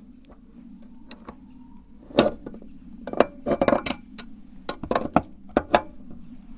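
Irregular sharp clicks and clinks of hard objects knocking together, about a dozen from two seconds in, with a cluster near the middle, over a low steady hum.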